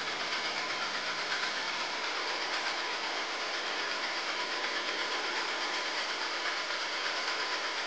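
American Flyer S-gauge toy train running along the track: a steady rushing hiss with a faint ripple and a thin steady tone underneath.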